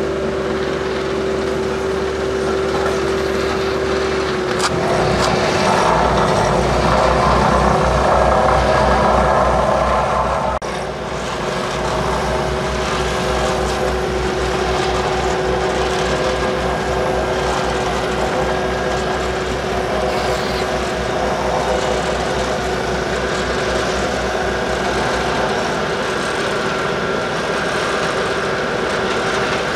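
Heavy diesel engine running steadily, growing louder about five seconds in and dropping back to a steady run at about ten seconds.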